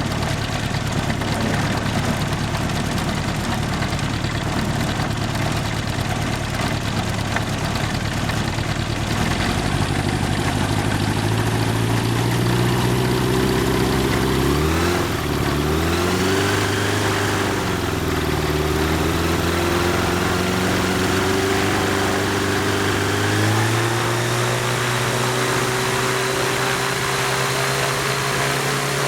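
Yamaha aircraft conversion engine turning a propeller through a Mohawk Silent Drive chain reduction unit, running up on a test. It runs steady at first, speeds up about a third of the way in, dips and climbs again around halfway, then steps up to a higher steady speed, with a rushing noise that grows as it speeds up.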